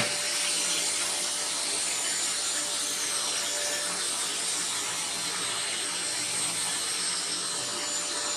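OSMON OS 1400BL bagless vacuum cleaner running steadily with a steady whine over rushing air, its floor nozzle sucking dust off a tabletop. A click right at the start, after which the sound drops a little in level and holds.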